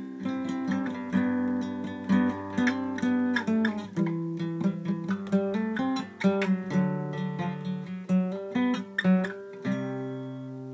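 Acoustic guitar being played: a steady run of plucked notes and chords that ring on, ending abruptly.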